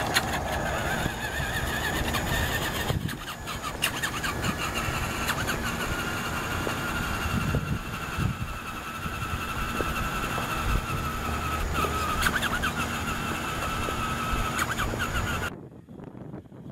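Traxxas Rustler RC car's electric motor and drivetrain whining steadily, wavering a little in pitch, with its tyres rumbling on a concrete sidewalk. The sound cuts off abruptly near the end.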